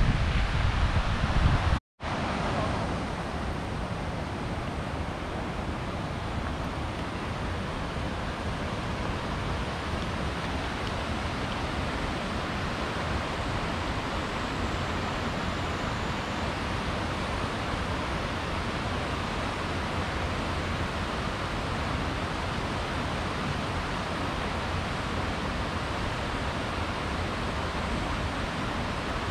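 Wind buffeting the microphone for about two seconds, cut off by a brief dropout, then the steady rush of a mountain river flowing over rocks.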